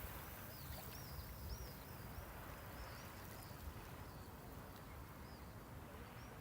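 Low, steady wash of sea waves at the shoreline. Starting about half a second in, a small bird gives a string of quick, high, arching chirps that stop a little past the middle.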